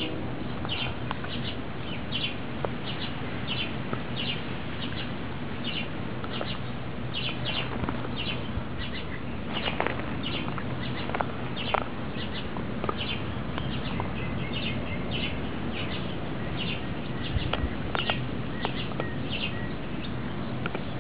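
A small bird chirping over and over, short high chirps about twice a second, over a steady low background hum. A few sharp clicks stand out now and then as the dog gnaws its bone.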